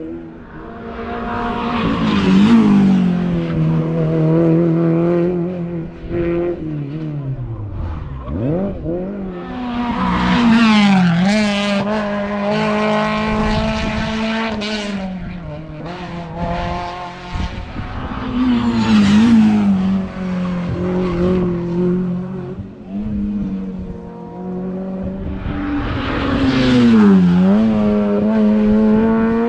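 Hill-climb race car engines revving hard through repeated gear changes, the pitch climbing and dropping with each shift. About eight seconds in, the pitch falls steeply as a car goes past.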